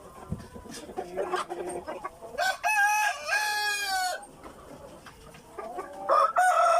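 A rooster crowing once, a loud drawn-out call of about two seconds in the middle, with chickens clucking around it; another crow starts near the end.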